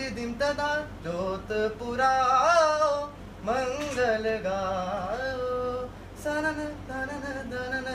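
A man singing a Hindi song without accompaniment, holding long notes that bend and glide in pitch, with short breaks between phrases.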